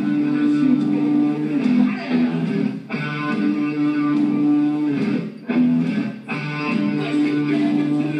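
Live hard-rock band playing, led by electric guitar holding loud sustained chords, with short breaks in the chords about three times.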